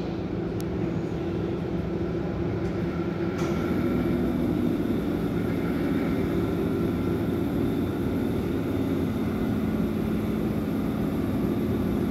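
Berlin U-Bahn train standing at an underground platform, its onboard equipment humming steadily. The hum's pitch shifts about three and a half seconds in and again near nine seconds.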